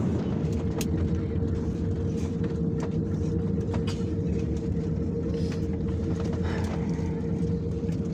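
Airliner cabin noise during the landing approach: a steady low roar of engines and airflow with a steady hum running through it, and a few faint clicks.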